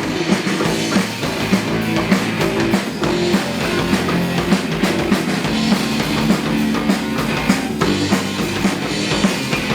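Rock band playing live, an instrumental passage between verses: a drum kit keeping a steady beat under guitars, with no singing.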